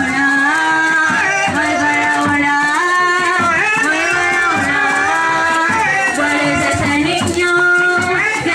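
Music: a sung melody over a shaken rattle such as maracas keeping time.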